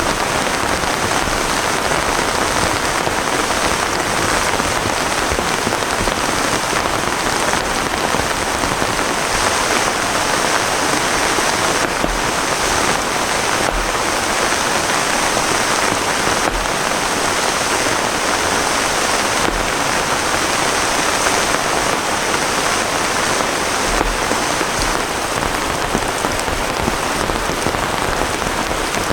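Heavy rain falling steadily, a dense even hiss, with a few sharper taps now and then.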